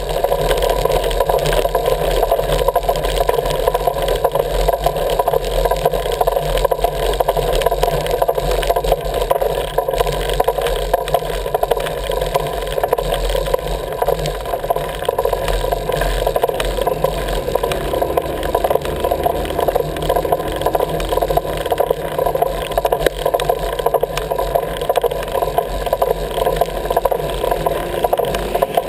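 Wheels rolling fast over rough asphalt, a steady rolling noise with a constant rattle and low rumble.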